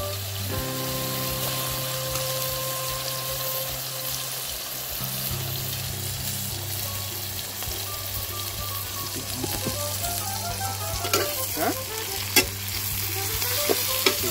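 Sliced onions frying in hot oil with whole spices in an iron kadai: a steady sizzle, with a few sharp clicks of a spatula stirring near the end.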